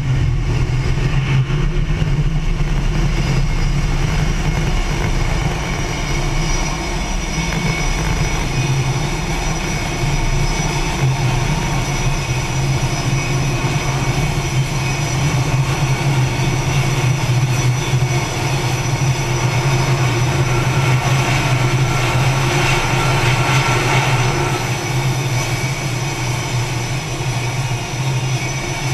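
Aircraft engines running at high power on a carrier flight deck, a loud, steady din of jet and turboprop noise from aircraft at the catapults. The hiss swells briefly about three-quarters of the way through.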